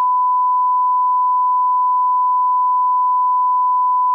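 Loud, steady censor bleep: one unbroken beep tone laid over the recording, blanking out speech to hide personal details in an anonymised version.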